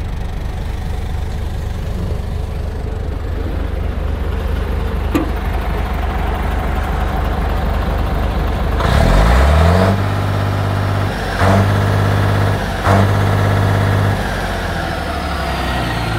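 DAF 3600 ATI truck's turbo-diesel engine idling steadily, then revved up about nine seconds in and held at high revs for about four seconds with two brief dips, before dropping back to idle. A high whine falls away as the engine settles.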